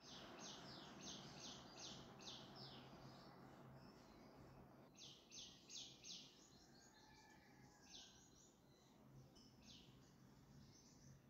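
Faint birds chirping in quick runs of high notes, in several bursts, over a low steady hum and background noise.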